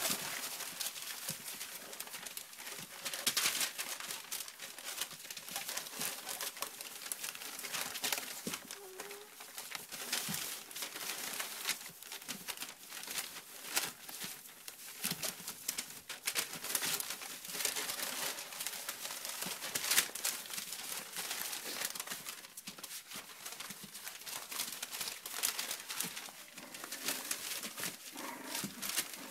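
Newspaper crinkling and rustling as English bulldog puppies scramble and play-fight on it, with now and then a short puppy vocal sound.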